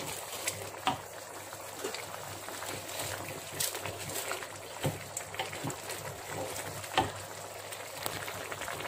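Mutton curry simmering in a pot, a steady bubbling hiss with a few sharper clicks, the clearest about one, five and seven seconds in.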